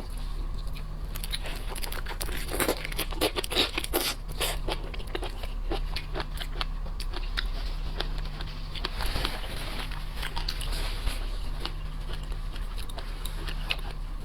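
Shrimp and crab shells being cracked, torn apart and bitten close to the microphone: a dense run of small crunches and crackles, over a steady low hum.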